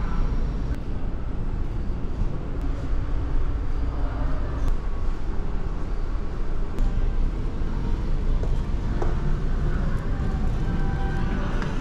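Steady low rumble of the ferry's engines and machinery, heard inside the ship. Electronic game-machine music starts to come in near the end.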